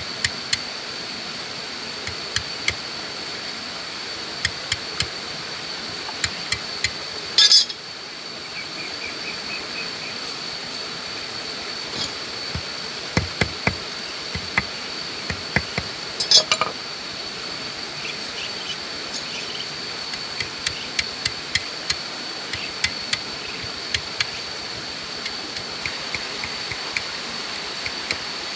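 Light metallic taps of a knife blade and a small hammer striking a thin wire on a wooden stump, irregular, with two louder strikes about a quarter and just over halfway through. A steady high-pitched insect buzz runs underneath.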